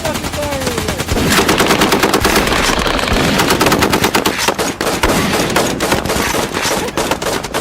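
Nerf blasters firing in rapid, continuous bursts, many shots a second, busiest from about a second in.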